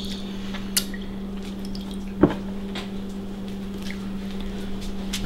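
Soft clicks and taps of tea biscuits being dipped in milk and laid into a foil-lined dish, the sharpest one about two seconds in, over a steady low hum.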